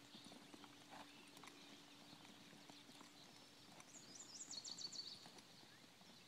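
Faint clip-clop of a ridden horse's hooves, irregular soft knocks, with a short high chirping about four seconds in.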